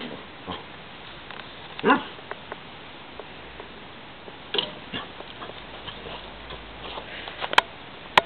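A puppy vocalizing at rabbits in a few short, pitched sounds, the loudest about two seconds in and another about four and a half seconds in. Two sharp clicks near the end.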